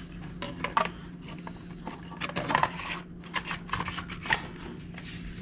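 Kodak No. 1A Folding Pocket Kodak being handled: irregular clicks, scrapes and rubbing as the camera body is slid back into its removable back. A faint steady hum runs underneath.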